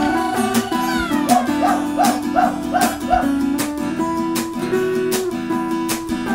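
Soundtrack music with a steady beat and held instrumental tones, with a run of five short wavering high notes between about one and three seconds in.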